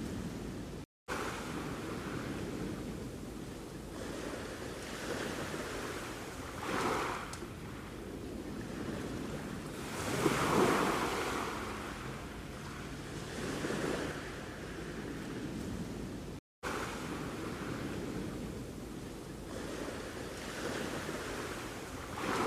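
Sea waves washing onto the shore: a steady surf noise that swells every few seconds as waves break, the biggest about ten seconds in. The sound cuts out completely for an instant twice.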